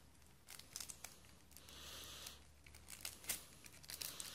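Deck of Yu-Gi-Oh! trading cards handled in the hands: faint rustling and light clicks of card against card, with a longer soft rustle about two seconds in.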